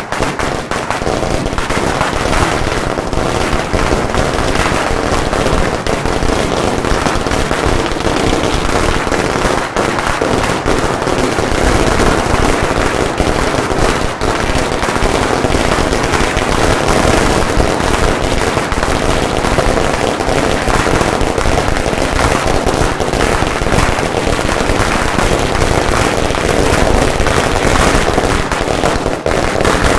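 Long strings of firecrackers going off in an unbroken, rapid crackle of small bangs.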